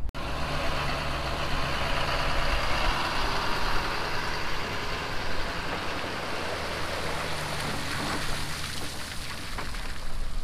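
A motor vehicle engine running steadily, with a broad hiss over it.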